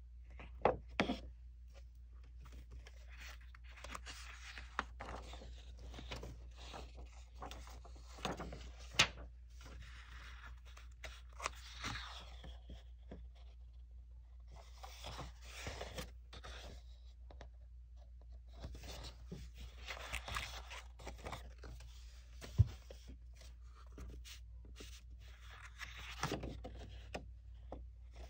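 Sheets of patterned paper and a clear plastic overlay rustling and crinkling as they are handled and leafed through, in several stretches, with a few sharp taps and clicks.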